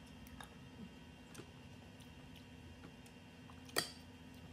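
Faint small clicks of chewing, then about four seconds in a metal spoon clinks sharply once against a ceramic plate while scooping rice.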